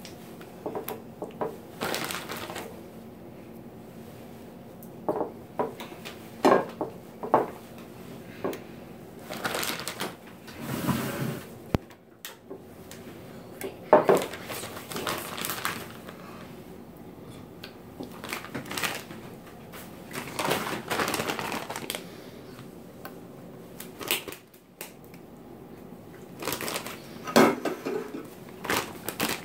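Plastic bags rustling and crinkling while ravioli are handled and set one by one onto sauce in glass baking dishes, with scattered light knocks and taps.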